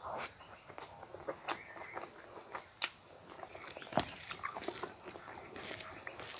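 Close-miked eating sounds of a person chewing a mouthful of rice and curry eaten by hand: irregular wet clicks and squelches, the loudest about four seconds in.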